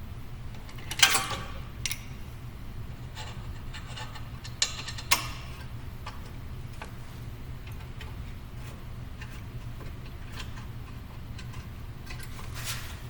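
Metal clinks and knocks from brake caliper hardware and hand tools being handled and fitted, with a few sharp clinks about a second in and again around five seconds in, over a steady low hum.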